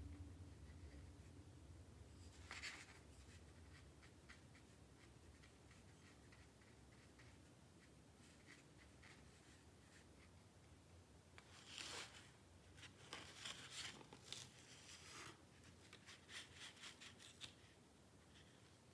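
Faint brush strokes on watercolour paper, soft scratchy swishes: one about three seconds in, then a cluster of short strokes from about twelve seconds in, over quiet room hum.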